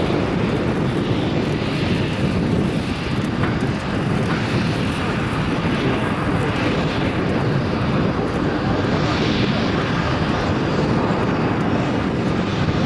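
Fixed-wing aircraft engine noise, loud and steady.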